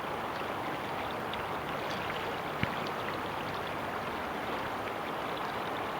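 River water flowing in a steady, even rush. A single faint tap about two and a half seconds in.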